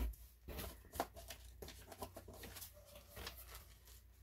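Faint, scattered rustles and light taps as yarn cakes and their plastic packaging are handled.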